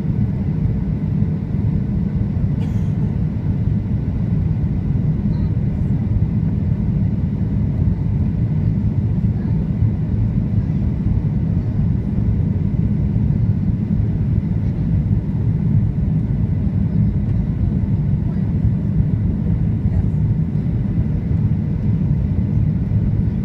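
Steady cabin noise of a Boeing 737-700 on final approach, heard from a window seat: the even, deep rush of its CFM56 turbofan engines and airflow over the wing with flaps extended.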